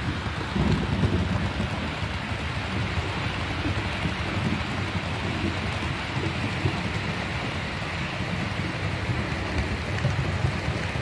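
H0-scale model train rolling along the layout's track: a steady rattling noise of wheels running over rails.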